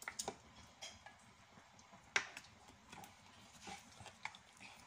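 Scattered small clicks and knocks of kitchen items being handled while oil is measured out, with one sharper knock about two seconds in.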